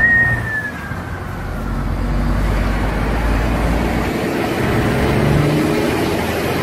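Steady road noise from a vehicle driving along a highway: a low engine and tyre rumble. A brief falling whine comes right at the start.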